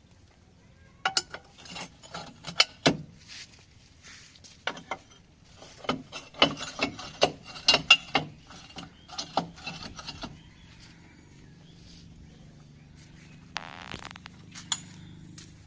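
Irregular metal clanks and clinks as a tractor's steel drawbar hitch and pin are handled and fitted by hand, many sharp knocks over the first ten seconds. After that, a low steady hum.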